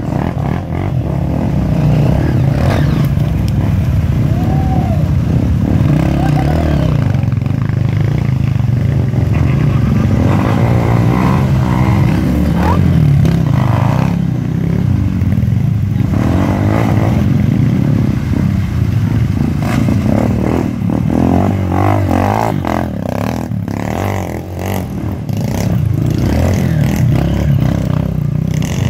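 Off-road dirt bike engines idling, close by, with an occasional rev that rises and falls.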